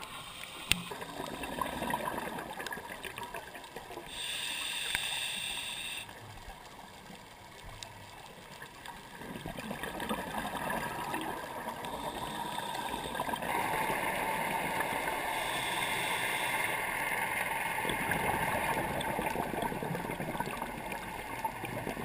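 A scuba diver's regulator breathing heard underwater: bursts of exhaled bubbles about four seconds in and again past halfway, over a steady underwater rush. A single sharp click sounds just under a second in.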